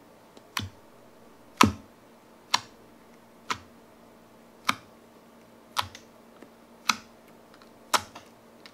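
Clear crystal jelly slime being poked with a fingertip, each poke giving a sharp little click or pop, eight in all, about one a second.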